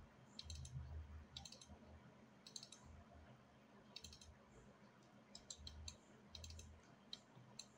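Faint computer mouse clicks, often in quick pairs or small clusters every second or so, as edges are picked one by one in the 3D modeling software. A faint low hum lies underneath.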